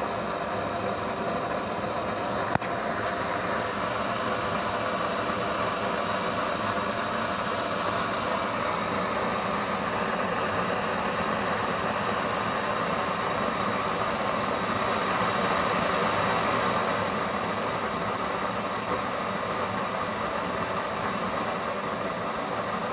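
Used-oil burner stove running with a blue flame: a steady rushing noise with a faint hum under it, a little louder in the middle. A single sharp click about two and a half seconds in.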